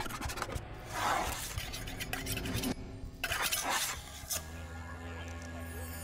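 Logo sound design: two rushing swooshes over a shimmering textured bed, then about four seconds in a low, steady musical drone sets in.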